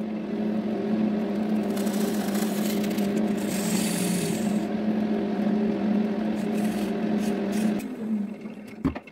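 Wood lathe running with a steady motor hum. From about two seconds in, a gouge cuts across the face of the spinning wooden blank for a few seconds, adding a rushing scrape. The hum drops away near the end, followed by a short knock.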